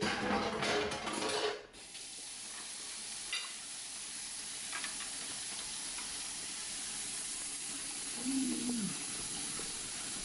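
Steady sizzling hiss of a hot electric griddle, after a louder, clattering burst of sound in the first two seconds. A few faint clicks sound over the hiss.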